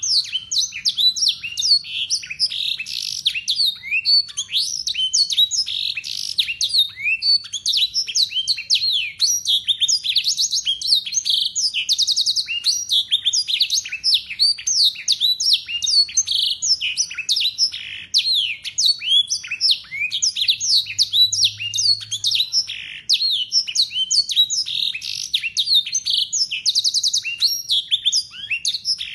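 Local Yorkshire canary singing without a break: a fast run of sweeping high notes with quick trills, its song filled with phrases learned from the black-throated canary.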